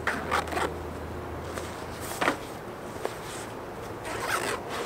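Nylon duffel bag being handled and unfolded: short scuffs and rustles of the fabric in the first second, a sharper scrape a little past two seconds, and a longer rustle near the end.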